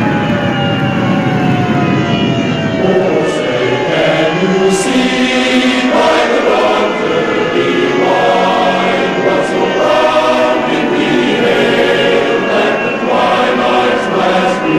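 A siren tone winding down in pitch over the first few seconds, then a choir singing slow, sustained chords.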